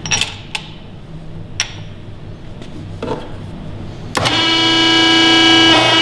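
A few light clicks and knocks as a hose assembly is handled into the crimper. About four seconds in, the Gates MobileCrimp 4-20 crimper's powered hydraulic pump starts and runs with a loud, steady hum as the dies close on the fitting, changing slightly just before the end.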